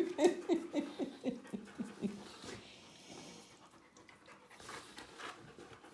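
A dog panting in quick short breaths, about four a second, with faint whimpers mixed in. The panting fades after about two and a half seconds.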